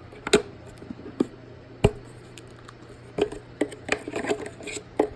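Sharp plastic clicks and knocks from a Roomba e6's removable dustbin and filter being handled and worked open: a few spaced clicks, the loudest about two seconds in, then a quicker run of clicks and rattles.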